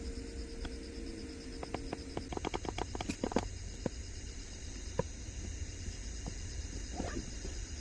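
Insects chirping steadily in high pulsing trills, with a quick run of sharp clicks and taps about two to three and a half seconds in, over a low rumble.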